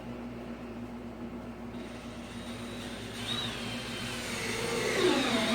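Cordless DeWalt drill driving a screw: the motor whine builds up from about two seconds in, then drops in pitch as it slows near the end. A steady low hum runs underneath.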